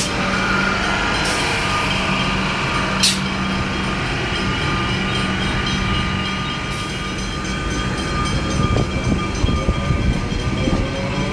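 Comeng electric suburban train running past at close range: a steady hum under a whine that slides in pitch, with two sharp clicks early and wheels knocking over rail joints in the last few seconds.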